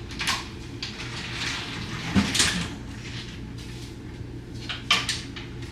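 Rummaging in a clothes closet: a few short clacks and rustles of a closet door, hangers and clothes being moved, about three times.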